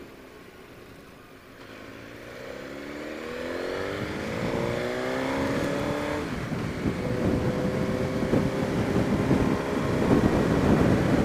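Suzuki GSX-R1000 K5's inline-four engine accelerating under load, its pitch climbing over several seconds, with a break about six seconds in like a gear change before it pulls on. Wind rush on the microphone grows louder as speed builds.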